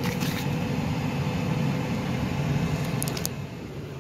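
Steady low rumble of a car's engine and road noise inside the moving cabin, with a few short clicks of the camera being handled near the end.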